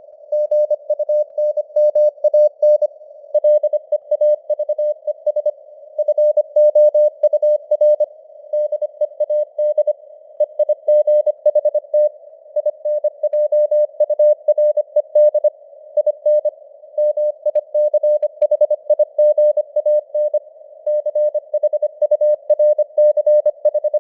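Morse code (CW) at 25 words per minute, sent as a single steady beeping tone keyed rapidly on and off in dots and dashes, with short pauses between words. Under it runs a narrow band of simulated radio hiss, and the signal strength varies (simulated QSB fading).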